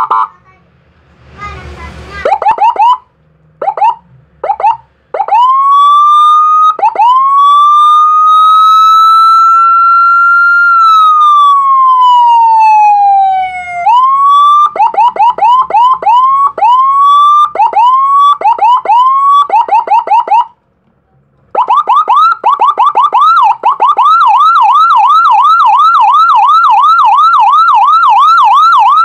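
Tantsiren TS001ANL electronic siren running through its tones. First come a few short rising whoops, then a long wail that climbs and slowly falls, then rising whoops about once a second. After a brief break it switches to a fast yelp, sweeping up and down about three or four times a second.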